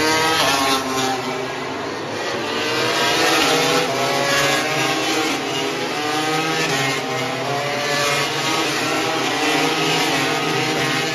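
Road-racing motorcycles going past on a circuit, their high-revving engines repeatedly rising and dropping in pitch as they accelerate.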